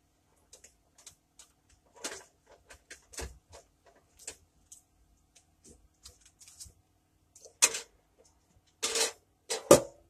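Clicks, taps and clatter from handling a Dash mini toaster oven and its foil-lined pan and wire rack, scattered at first, then louder knocks in the last few seconds, the loudest near the end as the small oven's door is shut.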